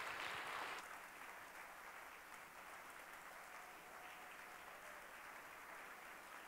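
Audience applauding; the applause drops sharply about a second in and carries on faintly and steadily.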